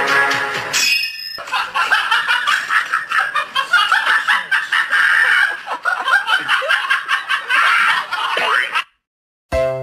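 People laughing, cutting off suddenly near the end.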